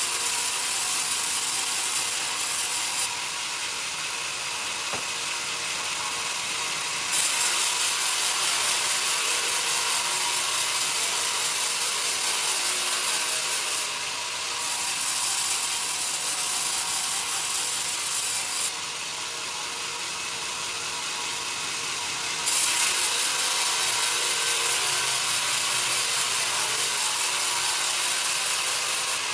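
Band sawmill's vertical blade ripping a pine cant on a log carriage: a steady, high, hissing sawing noise. It gets louder while the blade is in the wood and drops back in two pauses between passes, about three and nineteen seconds in.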